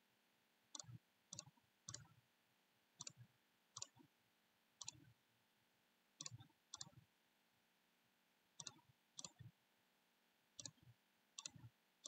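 Faint computer mouse clicks, about a dozen spaced unevenly at roughly one a second, some in quick pairs: each click places a window on the floor plan in the design software.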